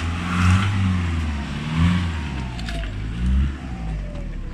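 Nissan Patrol off-roader's engine revved in three surges, rising and falling each time, as the truck strains with a front wheel up on top of a crushed car, then easing back to a lower run near the end.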